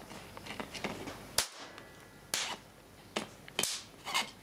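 Sharp crack of a capacitor bank discharging across a gap, about a second and a half in, followed by a few lighter clicks and knocks.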